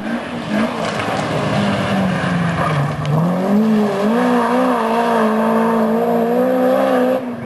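Rally car engine running hard on a gravel stage. Its pitch drops about three seconds in, then climbs and holds a high, steady note over the hiss of tyres on loose gravel, and cuts off suddenly near the end.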